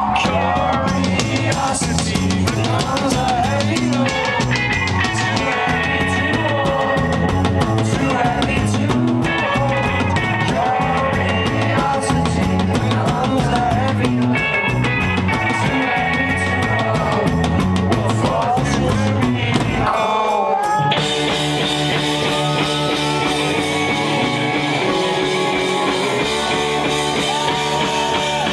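Live rock band playing loud: drum kit, electric bass and guitar, with a sung lead vocal. About twenty seconds in the music drops out for a moment, then carries on with sustained, held notes.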